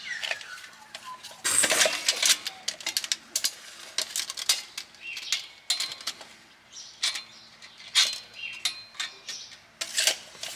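Metal clinks and knocks from steel exhaust pipe being handled and set in place, an irregular run of sharp taps with brief metallic ringing.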